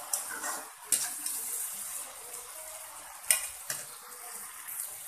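Chicken and colocasia leaves sizzling in a black wok while a metal spatula stirs them. The sizzle is a steady hiss, broken by sharp scrapes and knocks of the spatula against the pan near the start, about a second in, and twice just after three seconds.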